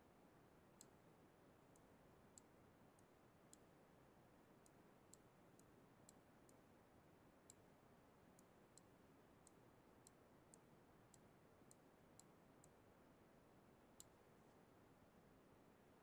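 Near silence with about twenty faint, sharp clicks of a computer mouse at irregular spacing as annotations are drawn on screen.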